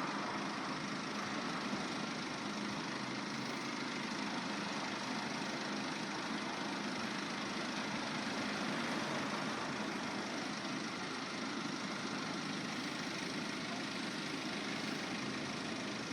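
Steady engine hum, like an idling vehicle, over even outdoor background noise.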